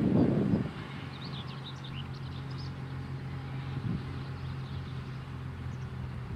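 Manitou MLT 840 telehandler's diesel engine running steadily as the machine drives along, a low even hum. Wind buffets the microphone in the first moment, and birds chirp briefly a second or two in.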